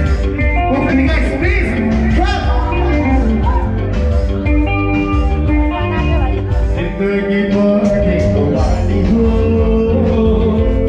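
Live band playing through PA speakers: a male vocalist sings into a microphone over keyboard, guitars and a heavy bass line.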